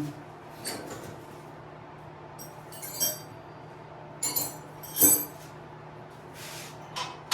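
Small metal parts and hand tools clinking and ringing as they are handled and set down: a handful of separate sharp clinks, the loudest about five seconds in, over a steady low hum.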